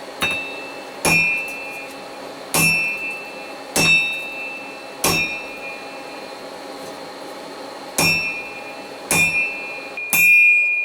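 Hand hammer striking a hot steel bar on an anvil, about eight blows with a pause of nearly three seconds midway, each blow leaving the anvil ringing with a high tone. This is the first stage of forging a pair of tongs: isolating the material for the jaws.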